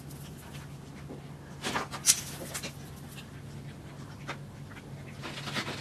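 Faint sounds from a small dog: a few short, sharp noises about two seconds in, another just after four seconds and more near the end, over a low steady hum.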